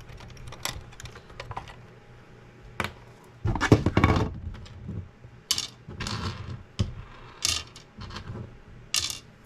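Small metal parts and hand tools clicking and clattering during work on a 3D printer's power supply wiring: a string of sharp clicks and short rattles, the loudest and longest about four seconds in.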